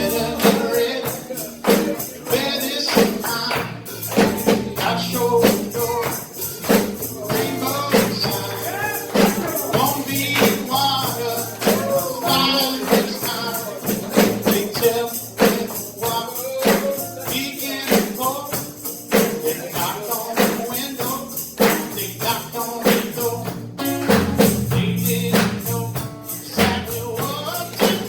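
Music with a tambourine keeping a steady beat and a voice singing over it.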